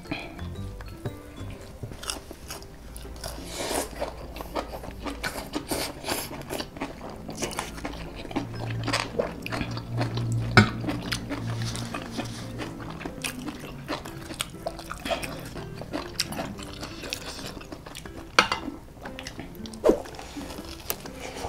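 Crunchy bites into fried corn dogs and chewing, heard close up as a run of sharp crackly crunches, over background music.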